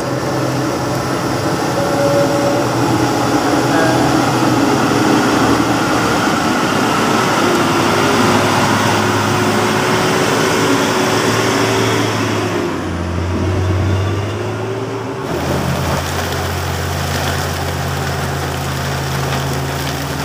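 Heavy diesel dump truck engine running steadily. Near three-quarters through, the sound changes to a different steady low drone.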